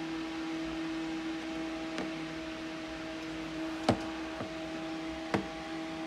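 Small plastic toy figurine being handled and set down on a plastic tabletop, giving two sharp knocks about a second and a half apart and a few fainter ticks, over a steady low hum.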